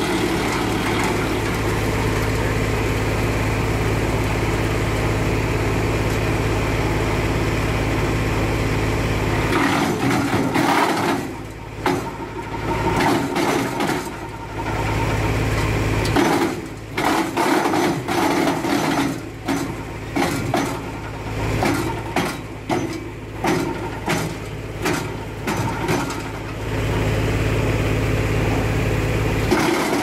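Tractor engine driving a PTO-powered wood chipper. It runs with a steady drone for the first ten seconds or so, then turns uneven, surging and dropping repeatedly through the middle as branches are fed in and chipped, and settles back to a steady drone near the end.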